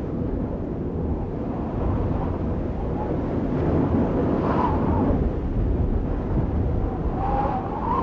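A steady, rumbling rush of noise from an outro sound effect, swelling a little midway, with faint wavering whistle-like tones above it.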